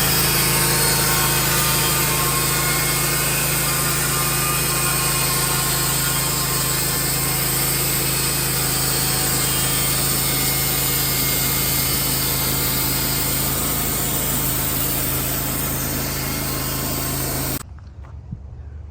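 A motor-driven machine or power tool running steadily under constant load, stopping abruptly near the end.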